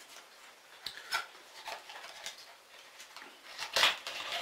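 Small cardboard box being opened by hand: scattered rubbing and scraping of the card and its end flap, with a couple of light clicks about a second in and the loudest scrape near the end.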